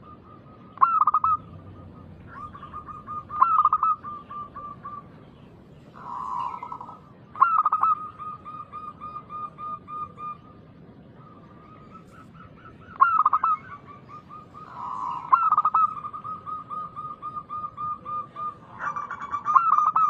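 Zebra doves (perkutut) cooing: repeated phrases, each opening with a loud note and running on in a quick string of short cooing notes, about six phrases, some overlapping as more than one bird calls.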